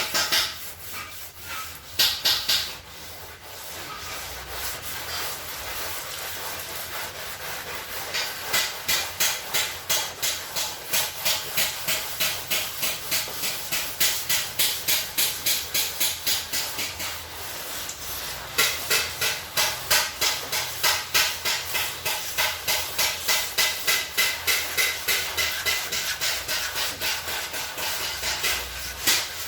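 Sandpaper being rubbed back and forth by hand over a car's engine hood. The strokes are rhythmic and hissing, at about three a second, with a short pause near the middle.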